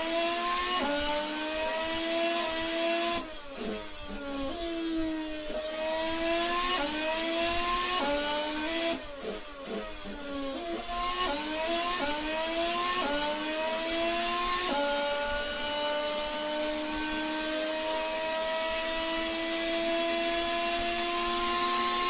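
2014 Mercedes-Benz 1.6-litre turbocharged V6 Formula One engine accelerating up through the gears, its pitch climbing and dropping at each quick upshift. It backs off and downshifts twice, about three and nine seconds in, then holds one long rising pull in a high gear near the end.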